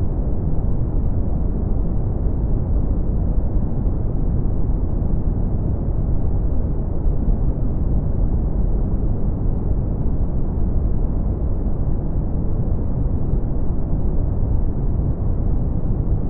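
Steady brown noise: an even, deep rush with most of its weight in the low end.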